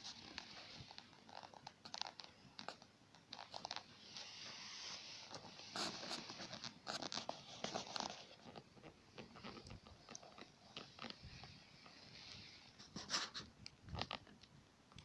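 Wood campfire crackling: irregular sharp pops and snaps over a soft hiss.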